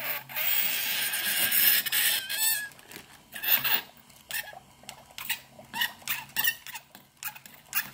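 Metal spoon pressed onto dry ice, screeching in a string of short, high-pitched squeals as the escaping carbon dioxide gas sets the metal vibrating. A plastic bag rustles over the first two seconds.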